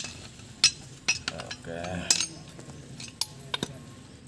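Metal parts of a car steering rack clinking and knocking as the steel rack bar and its housing are handled and fitted together, with a series of sharp clinks, the loudest a little past three seconds in.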